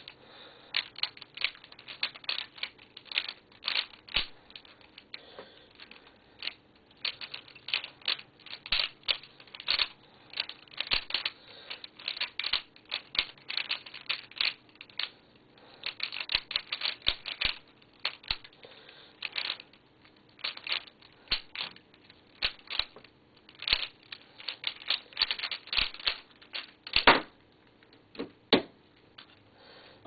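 3x3 Rubik's cube being speedsolved: the plastic layers click and clack in rapid bursts of turns with short pauses between. About 27 seconds in, one much louder knock marks the end of the solve as the timer is stopped.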